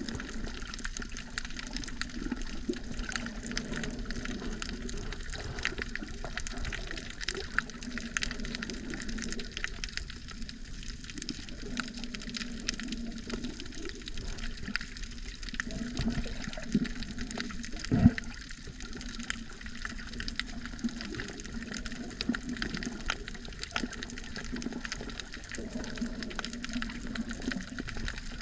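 Underwater sea ambience: a steady muffled water rush with scattered faint clicks, and one louder thump about 18 seconds in.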